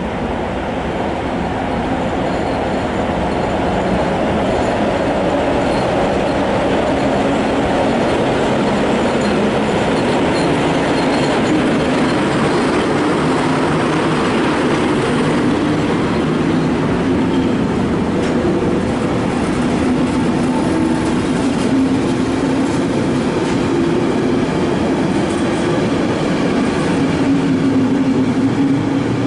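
ET22 electric freight locomotive passing the platform, followed by a long train of loaded container flat wagons rolling by on the rails. The noise builds over the first few seconds as the train draws level, then holds steady.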